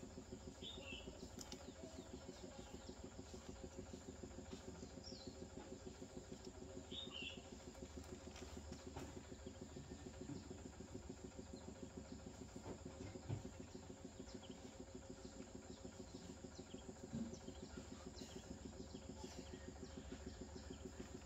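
Faint steady background hum with a fast, even flutter, and a few short bird chirps about a second in and again around five and seven seconds. Soft knocks from handling near the middle and later.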